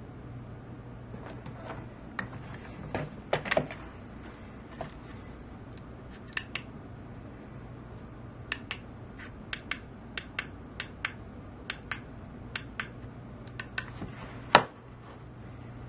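A series of short, sharp clicks, many in quick pairs like press-and-release of small push buttons, most likely the PID temperature controller's buttons being pressed to change the set value. A low steady hum runs underneath, and a louder knock comes near the end.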